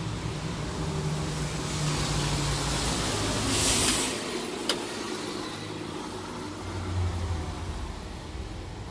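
City bus and street traffic running, a steady low engine hum, with a short, loud hiss of air about three and a half seconds in, a sharp click just after it, and a heavier low rumble swelling near the end.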